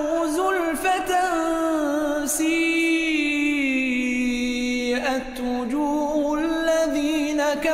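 A solo male voice reciting the Quran in melodic tajwid style, drawing out long held notes with ornamental turns.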